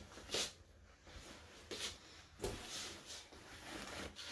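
Faint handling noises: a few short scuffs and knocks as objects are moved about, the clearest about half a second in and another about two and a half seconds in.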